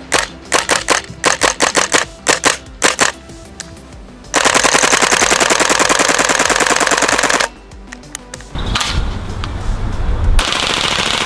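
WE-Tech Apache A3 (MP5A5-style) gas blowback airsoft gun firing: about a dozen quick single shots in the first three seconds, then a continuous full-auto burst of about three seconds. A further steady run of sound starts near the end.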